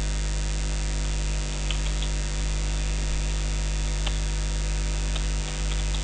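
Steady electrical mains hum on the recording, with a few faint clicks of keyboard keys scattered through it.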